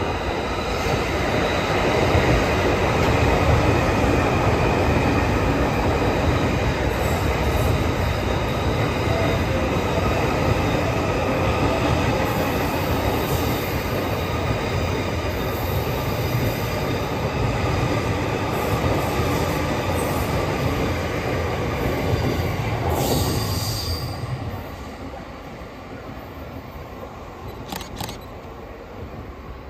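JR East E231-1000 series electric commuter train running past at speed: steady rolling noise of wheels on rail, with faint high tones on top. The noise drops away about 24 seconds in as the last car clears.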